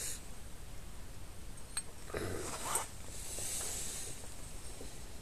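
Motorcycle clutch parts handled and fitted by hand: a light click, then a short metallic scrape ending in a click as a part slides into place, followed by a soft hiss.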